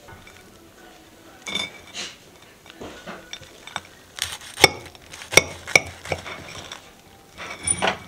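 Kitchen dishes clinking: a ceramic plate and metal utensils knocking on a stone countertop in a run of sharp, ringing clinks, the loudest about four to six seconds in.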